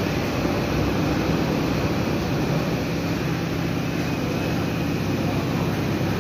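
Steady mechanical drone of a heavy overhead workshop crane carrying a locomotive body, with a low hum that settles into a steady tone about two and a half seconds in.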